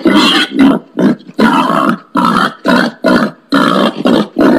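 Wild pig giving a loud series of short grunts, about two a second, with brief gaps between.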